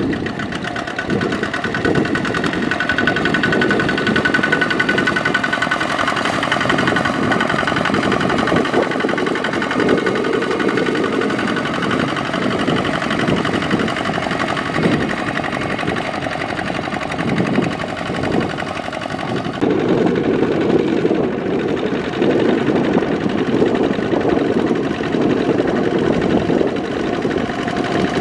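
Single-cylinder diesel engine of a Kubota ZT155-powered walk-behind hand tractor running steadily under load while it plows wet paddy mud.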